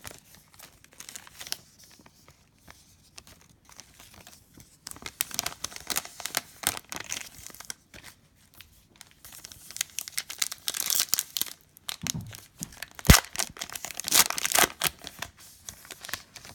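A foil trading-card pack wrapper being torn open and crinkled, in irregular rustling bursts with one sharp snap partway through.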